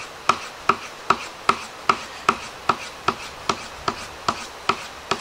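Steel blade being stropped on a horse-butt leather strop in quick, even back-and-forth strokes, a short sharp tick about two and a half times a second. The stropping hones the edge and removes the burr.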